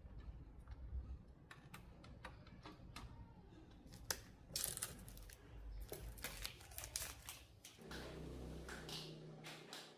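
Irregular light clicks, taps and rustling of hands handling small objects, with a low hum for a couple of seconds near the end.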